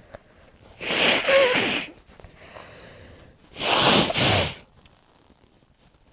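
A person sneezing twice, two loud sneezes about three seconds apart, each lasting about a second, with faint breathing between them.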